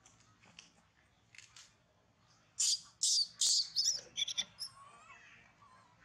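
Long-tailed macaques giving shrill, high-pitched squeals: three loud ones close together about halfway through, then several shorter ones.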